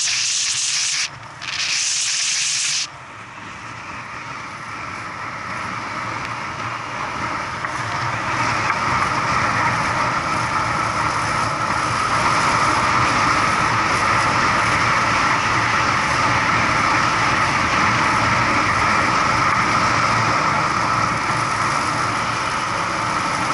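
Wind and road noise on a moving vehicle's onboard camera. A loud hiss for about the first three seconds cuts off sharply, then the rushing noise grows steadily louder over several seconds and holds steady.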